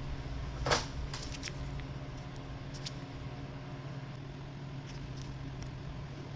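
Small clicks of metal parts or hand tools being handled, with one sharp knock just under a second in and a few lighter ticks after, over a steady low hum.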